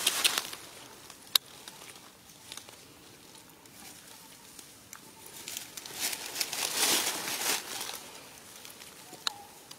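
Dry leaf litter rustling and crackling as it is stirred, with a sharp click about a second and a half in. A louder patch of crinkling and rustling comes around six to seven and a half seconds.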